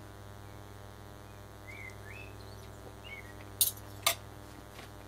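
A fork clicking twice on a china plate, the two strokes about half a second apart, with faint bird chirps before them and a low steady hum throughout.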